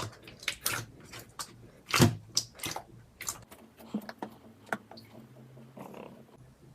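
Slime being squeezed and worked by hand, making irregular wet clicks and pops, the loudest about two seconds in.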